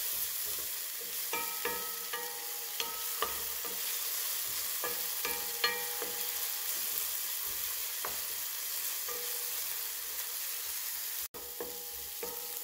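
Chopped onions, garlic and berbere sizzling in oil in a frying pan while a wooden spoon stirs them. The spoon scrapes and knocks against the pan every second or so, some knocks leaving a brief ring.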